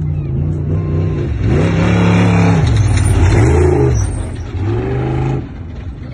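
Off-road race truck's engine revving hard on a dirt trail, the revs dropping and climbing again several times. It is loudest about two to four seconds in, with a rush of tyre and gravel noise.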